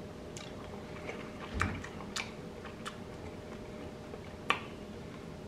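A person chewing and biting into crispy-skinned smoked chicken, with a few scattered crunchy clicks, the sharpest one near the end.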